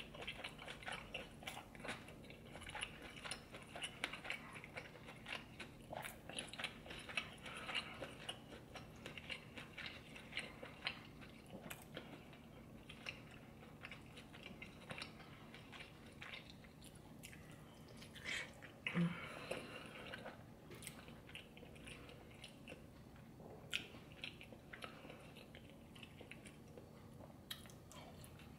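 Close-miked chewing and biting of seafood boil in butter sauce: wet smacking mouth sounds and small clicks in an irregular stream, with one brief louder sound about two-thirds through.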